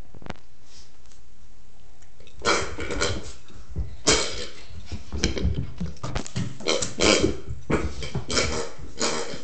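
Border Collie puppy giving a run of short, gruff play growls and grunts, starting about two and a half seconds in and coming several times a second.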